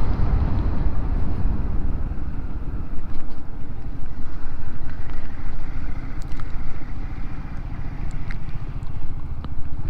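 Honda Forza 350 scooter's single-cylinder engine running steadily at road speed, with wind rushing past.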